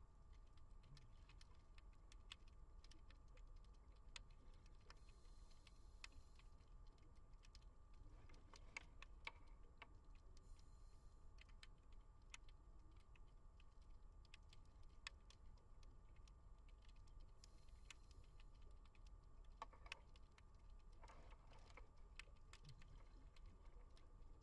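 Faint underwater ambience: scattered crackling clicks, with a short hiss of scuba regulator exhaust bubbles about every six seconds.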